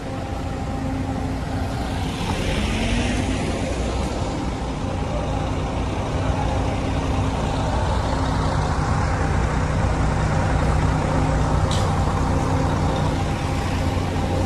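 Vehicle engines running: a van pulls away with a short rising engine note about two seconds in, then a steady engine hum from an idling coach bus grows louder toward the end.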